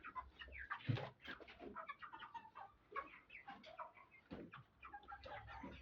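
A flock of young broiler chickens, nearly six weeks old, peeping and clucking softly in many short overlapping calls.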